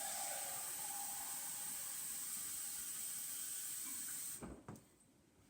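Kitchen sink tap running water into an empty coconut milk can, rinsing out the last of the coconut milk. It runs steadily for about four seconds, then is shut off, followed by a couple of light knocks.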